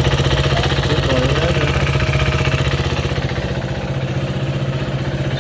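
KTM Duke 390's single-cylinder engine idling steadily after its rebuild.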